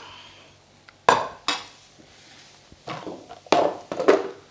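A stainless steel frying pan with a wooden spoon in it, clanking as it is carried and set down on a wooden table: about five separate knocks and clatters with a short metallic ring.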